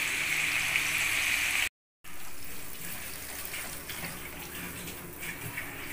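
Hot oil sizzling steadily as marinated quail pieces deep-fry in a kadai. A little under two seconds in, the sound cuts out for a moment and comes back quieter, with light crackling from the nearly fried pieces.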